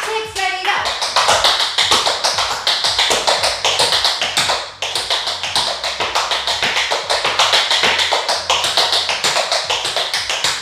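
Tap shoes striking a hard floor in a fast, continuous run of taps, with a brief break about five seconds in.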